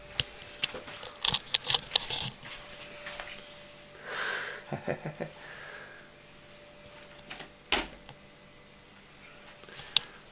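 Handling noises: a scattered run of sharp clicks and taps, thickest in the first two seconds, with a brief breathy rush about four seconds in and a few single knocks later.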